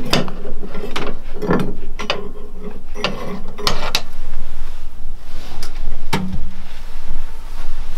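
Metal clanks and scrapes as an electric heat-treating kiln's lift-up door is opened and shut and a blade is set inside with tongs: about half a dozen separate knocks, over a steady low hum.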